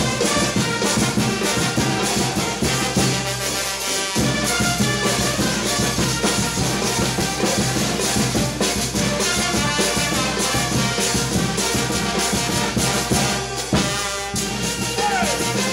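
Live brass band playing fast dance music, with brass over a snare drum and cymbals.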